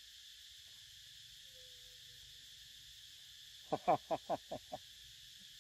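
Steady high drone of insects, with a loud quick run of six sharply falling calls about two-thirds of the way through.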